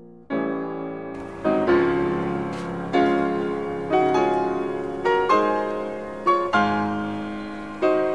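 Background piano music: a phrase begins just after the start, with notes or chords struck about once a second, each one dying away.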